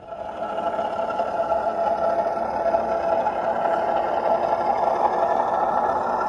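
Class 08 diesel shunter engine sound from a model locomotive's DCC sound decoder, played through its Alz Soundz 42x30x17 onboard speaker as the O gauge model runs along the track. It cuts in suddenly and then runs steadily, with a droning engine note.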